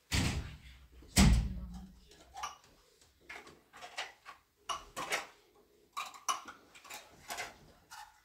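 Two heavy thumps about a second apart, the second the loudest, followed by a string of light irregular knocks and clinks, like cups and dishes being picked up and set down.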